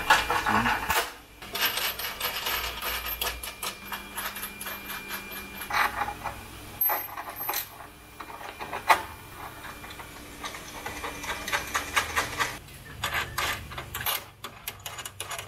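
Small metal hardware clicking and clinking as a bonnet pin with its washer and nut is fitted and turned by hand in its mount. The clicks come in busy runs, with one sharper click about nine seconds in.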